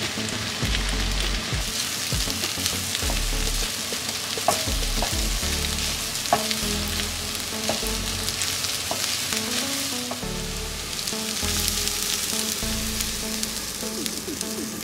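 Spam and onion sizzling as they stir-fry in a pan, with the scrapes and taps of a utensil stirring them.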